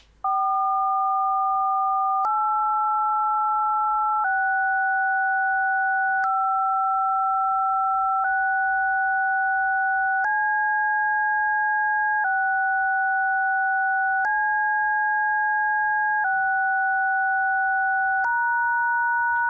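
A run of DTMF telephone-keypad tones, each a steady two-note chord held about two seconds, back to back: 4, 8, 6, 5, 6, C, 6, C, 6, then hash, the hex for "hello" encoded as tones. A faint click marks each change of tone.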